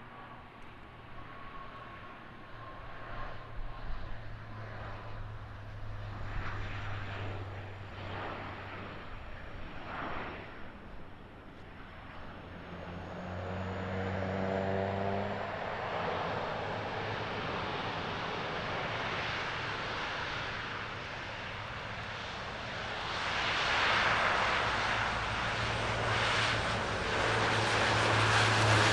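A twin-engine jet airliner climbing away after takeoff, its engine noise fading over the first dozen seconds. Then a De Havilland Canada Dash 8-400's Pratt & Whitney PW150A turboprops come in with a low propeller drone that grows steadily louder as the plane speeds down the runway. It is loudest near the end as it passes close by.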